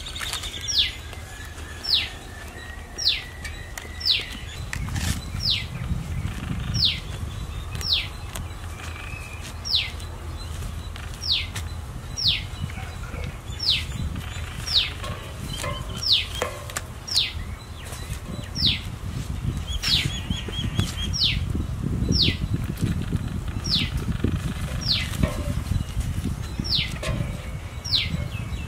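A bird calling over and over, one short whistled note sliding downward in pitch about every second and a half. Beneath it, a low rustling as wet feathers are plucked from a scalded rooster.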